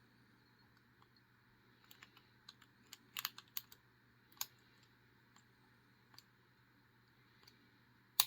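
Faint, scattered metallic clicks and taps of a lock pick working the pins of a Master Lock S31 lockout padlock held in a false set, as the picker feels for counter-rotation of the spool pins. The clicks come in a cluster a few seconds in, with one sharper click near the end.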